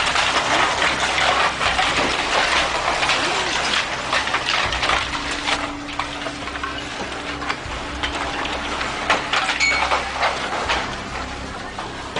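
Old tile-roofed wooden houses collapsing in an earthquake: a dense rushing clatter of falling roof tiles and rubble over a low rumble, loudest in the first few seconds and easing off toward the end.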